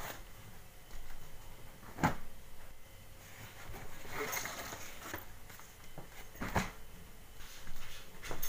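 Clothes being handled as they come off plastic hangers: sharp knocks about two seconds in and again about six and a half seconds in, with cloth rustling in between and a few smaller knocks near the end.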